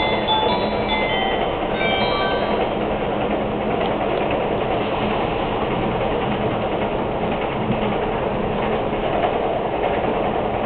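Cabin noise of the Raicho limited express train running at speed over a steel truss bridge: a steady rumble of wheels on rails. The last notes of the onboard announcement chime fade out in the first couple of seconds.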